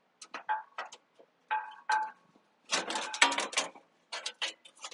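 Light metallic clicks, taps and clinks of a sprint car's side body panel being worked into place against the chassis and muffler. They come in scattered bunches, some with a brief ring, and grow busier in the second half.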